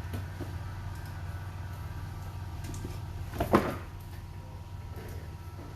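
One sharp knock of a hard object being handled, about three and a half seconds in, with a few faint clicks, over a steady low hum.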